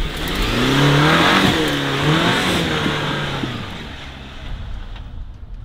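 Jeep Wrangler Rubicon 4xe plug-in hybrid, its 2.0-litre turbo four-cylinder running hard as it launches from a standstill and accelerates up a steep muddy dirt slope. It is loudest about a second in, then fades over the next few seconds as it climbs away.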